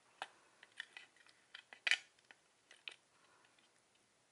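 Wooden-block rubber stamps clicking and knocking against their small metal tin as they are lifted out and set back in: a scatter of light taps, the loudest about two seconds in, dying away in the last second.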